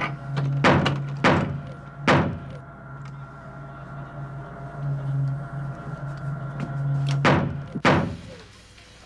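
A fist knocking hard on a door: three heavy knocks in the first two seconds, then two more near the end, under a low steady hum.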